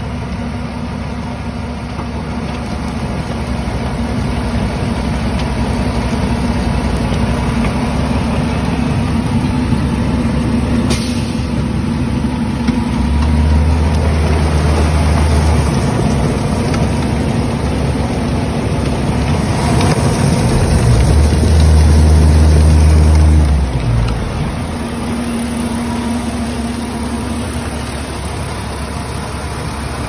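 Volumetric concrete mixer truck running steadily with its engine and hydraulically driven mixing machinery working, as concrete is mixed and discharged down the chute. The low hum swells twice, about midway and again a few seconds later, then eases back.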